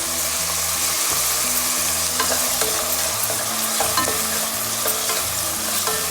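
Pomegranate arils and a tempering of mustard seeds, dals, cashews, ginger and green chillies sizzling steadily in hot oil in a pan, being stirred with a spoon that clicks and scrapes against the pan a few times.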